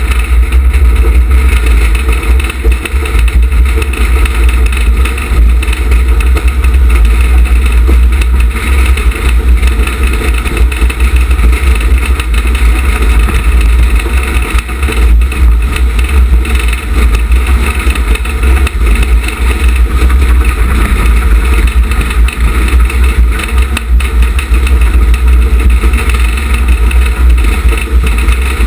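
Wheelbob, a wheeled summer bobsleigh, running fast down a concrete bobsleigh track: a loud, steady rumble of its wheels on the concrete, with heavy wind buffeting on the microphone at speed.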